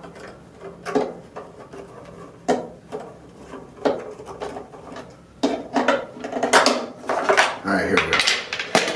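Metal scissor-blade tip turning a small screw in the hard plastic battery cover of a toy Infinity Gauntlet, used in place of a screwdriver. Sharp clicks come about every one and a half seconds, then from about five seconds in a dense run of clicking, scraping and plastic rattling as the cover comes off the battery compartment.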